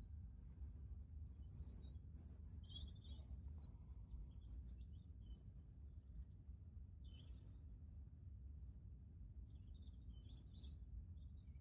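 Faint birdsong: small birds chirping and twittering on and off throughout, over a low steady outdoor rumble.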